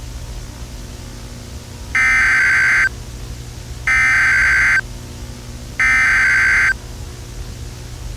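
Emergency Alert System SAME header: three identical digital data bursts, each just under a second long and about a second apart, over a steady background hiss. The bursts open a new alert message.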